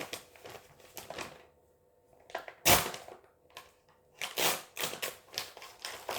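A parcel being opened by hand: its plastic packaging rustles and crinkles in irregular bursts, with one sharp, loud crackle about two and a half seconds in and a busier stretch near the end.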